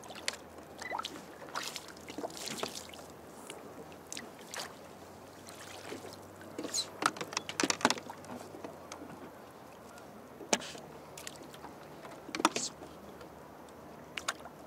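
Scattered knocks and clicks of handling aboard a fishing kayak, with a quick run of sharp clicks about halfway through and a few single knocks near the end.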